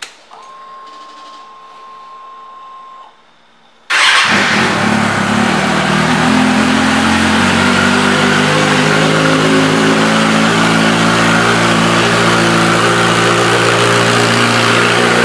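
A 2015 Kawasaki Ninja ZX-6R's inline-four, fitted with an M4 aftermarket exhaust, fires up about four seconds in and settles into a steady idle. Before it starts there is a quieter steady whine lasting about three seconds.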